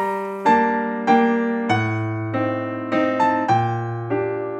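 Background music: a slow piano melody, a new note or chord struck about every half second and left to fade before the next.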